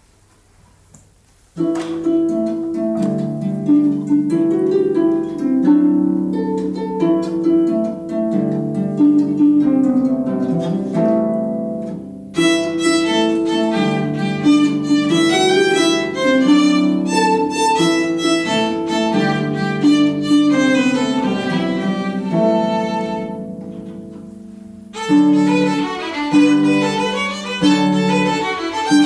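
Violin playing a lively Irish dance tune, a hornpipe, over a lower accompanying instrument. The playing begins about a second and a half in.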